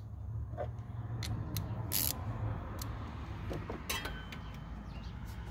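A socket and extension clinking against metal, with irregular light clicks as they are worked onto the idler pulley bolt, over a low steady hum.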